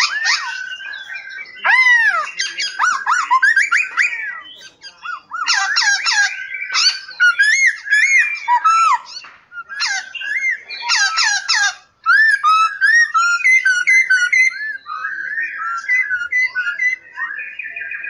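Several caged songbirds singing and calling together: a dense, overlapping chorus of whistled notes that glide up and down, mixed with quick chirps, with a brief break about twelve seconds in.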